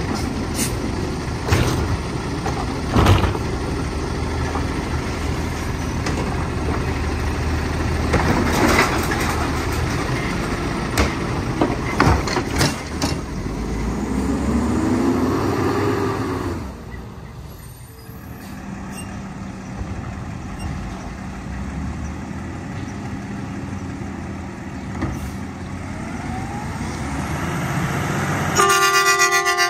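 Diesel engine of a Mack automated side-loader garbage truck running while its hydraulic arm handles a recycling bin, with sharp clanks and knocks and a hydraulic whine that rises and falls about halfway through. After that the engine sound is lower and steadier as a Mack garbage truck drives up, and a short horn toot sounds just before the end.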